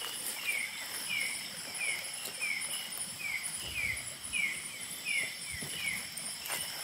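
Night-time tropical forest chorus: insects trill steadily at a high pitch, and a short call that slides downward in pitch repeats about twice a second. A few soft low thumps come in around the middle.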